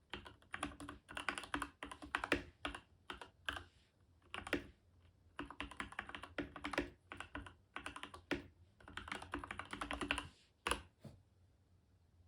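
Keychron K10 mechanical keyboard with Gateron Red linear switches being typed on: rapid bursts of keystrokes with short pauses between them, stopping near the end.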